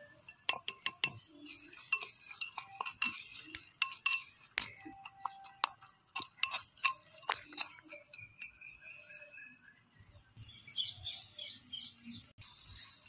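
Steel spoon clinking and scraping against a small clay pot as onions and tomatoes are stirred. There are many sharp taps in the first seven or so seconds and fewer after, over a steady high hiss.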